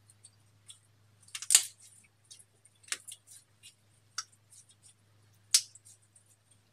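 Clear slime being pressed and worked by hand, giving irregular sticky clicks and pops, the two loudest about a second and a half in and near the end.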